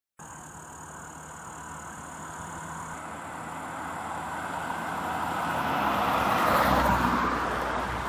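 A motor vehicle on the road approaching and passing, its noise building steadily for several seconds and peaking about seven seconds in.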